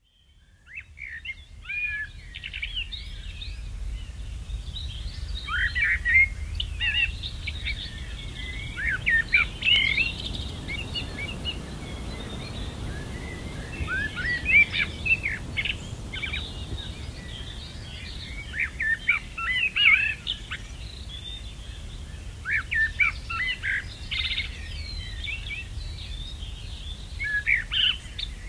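Songbirds singing in short, quick phrases with brief pauses, more than one bird at times, over a low steady rumble. The sound fades in at the start.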